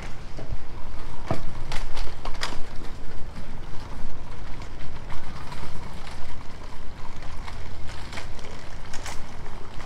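Outdoor car-park ambience: a steady low rumble of traffic and moving air, with scattered sharp clicks and knocks, most of them between one and two and a half seconds in and another near the end.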